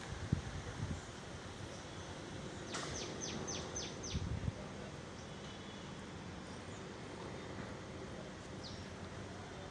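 Strong pre-monsoon wind blowing steadily, with a few low rumbling gusts buffeting the microphone. About three seconds in, a bird gives a quick run of five high, downward-sliding chirps, and one more near the end.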